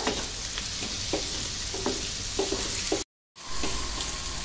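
Chopped onions sizzling in butter in a nonstick frying pan, sautéing toward the translucent stage, while a wooden spatula stirs them with scattered scrapes and taps against the pan. The sound drops out completely for a split second about three seconds in.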